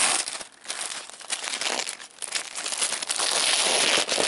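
White paper wrapping crinkling and tearing as hands rip it open and pull it back, with two short lulls, the first about half a second in and the second about two seconds in.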